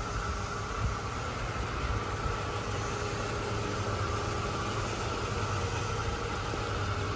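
1984 Mercedes-Benz 380 SL's 3.8-litre V8 idling steadily, engine and exhaust running smoothly.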